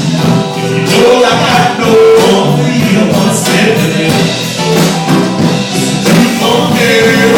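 A band playing a song with singing, loud and continuous.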